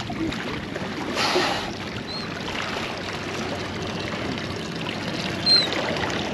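Water sloshing and lapping against a small boat's hull, with a brief louder splash about a second in and two faint, short, high chirps.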